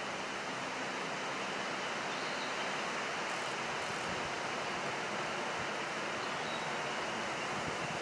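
Steady rushing noise of running water, with no clear bird call.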